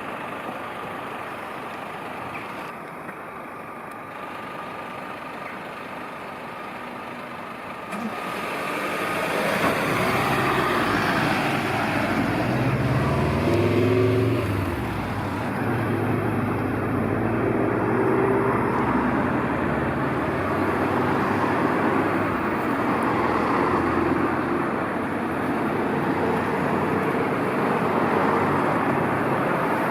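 Road traffic at a pedestrian crossing: quieter for about the first eight seconds, then vehicles drive past. An engine's hum is loudest about halfway through.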